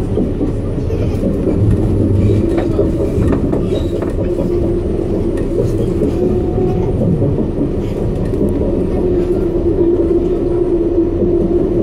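Detroit People Mover car, driven by a linear induction motor, running along its elevated track: a steady hum over a continuous rumble, with a few scattered clicks.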